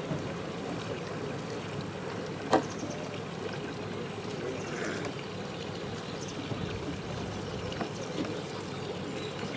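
Outboard motors of the gathered boats running at idle, a steady low drone, with one sharp knock about two and a half seconds in.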